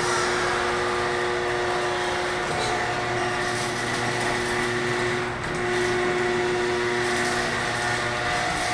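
Electric garage door opener running steadily as it closes the overhead door, with a motor whine and a brief dip about five seconds in.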